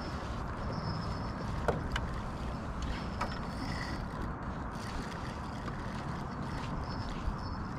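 Quiet ambience aboard a canoe on open water: a steady low rush of water and air, with a few small sharp clicks and knocks of gear in the boat.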